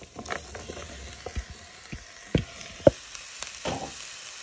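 Onions and garlic frying in a pan with a low steady sizzle, as sliced mushrooms and green pepper are tipped in from a plastic bowl and moved with a wooden spoon. About half a dozen sharp knocks and clicks sound over the sizzle.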